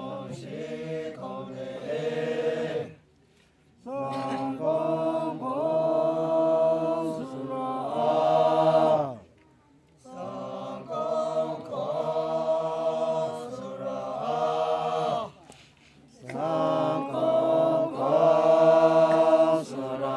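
Makury Naga men's choir singing unaccompanied in three-part harmony, in chanted phrases of several seconds separated by short breaks. Each phrase ends with the voices sliding down in pitch together.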